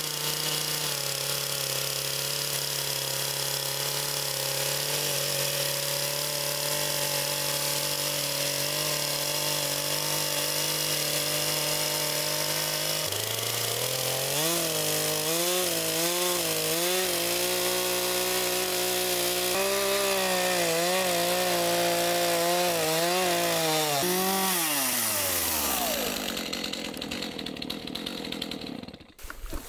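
Two-stroke chainsaw ripping a log lengthwise, running steadily under load. A little under halfway its pitch steps up and wavers as the cut goes on. Near the end the engine winds down and falls away.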